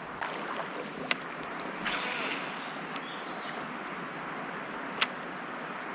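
Steady outdoor hiss of moving water and wind around a kayak, with a sharp click or knock about a second in and another near the end, and a brief louder rush of noise around two seconds in.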